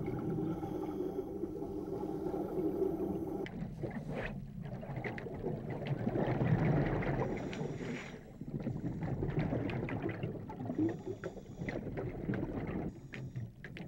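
Underwater sound of scuba divers' exhaled air bubbles rushing and gurgling. A steady hum is heard for the first three and a half seconds.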